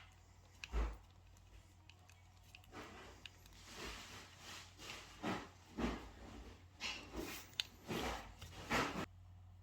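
Small hand work on a diecast toy model: a string of brief, irregular rubbing and scraping strokes, with a low knock about a second in and a sharp click near the end.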